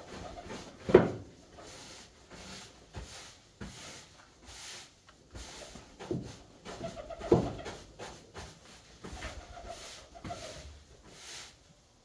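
Körös tumbler pigeons cooing softly, with two short, sharp knocks, the loudest sounds here, about a second in and again around seven seconds.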